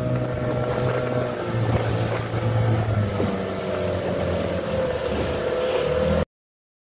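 Small fishing boat's motor running steadily at trolling speed, with water rushing past the hull and wind on the microphone. The sound cuts off suddenly about six seconds in.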